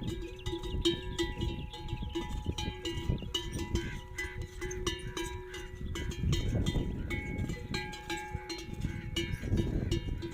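Livestock neck bells clanking and jingling over and over as the camels move about drinking, over an uneven low rumble.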